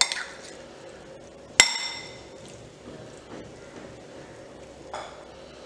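Metal spoon stirring chickpea chaat in a glass bowl: a sharp clink at the start and a louder ringing clink about one and a half seconds in as the spoon strikes the glass, with soft stirring sounds between.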